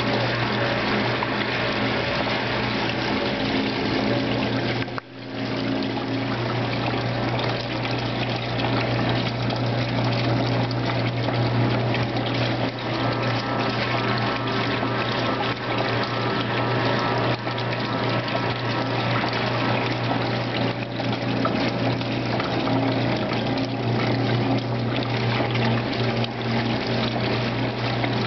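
1958 General Electric Filter-Flo top-loading washer running: a steady motor hum under the sloshing and splashing of water as the agitator churns the wash and water spills back from the top of the center post. The sound cuts out for a moment about five seconds in, then resumes.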